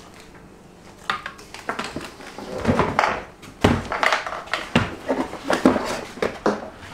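Handling clatter of hard plastic parts: irregular knocks, taps and scrapes as a moulded plastic heater stand is lifted out of a plastic tub, starting about a second in.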